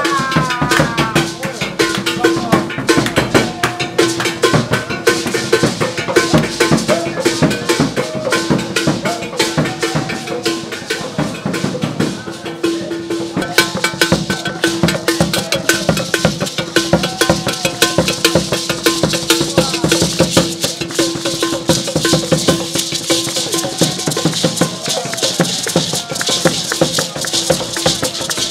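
Traditional drum and shaken-rattle music in a fast, dense rhythm, with voices and a held low note running through most of it.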